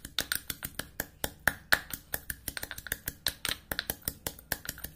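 Kitchen knife chopping quickly on a cutting board, a fast run of sharp clicks at about eight to ten strokes a second.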